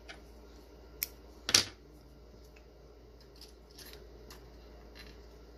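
Small scissors snipping once, about a second and a half in, after a sharp tick, with faint scratchy ticks of handling fly-tying materials later on.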